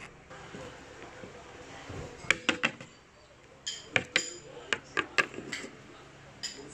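Small hard plastic toys clicking and clinking against each other as they are handled, in a few short clusters of sharp taps that start about two seconds in, some with a brief ring.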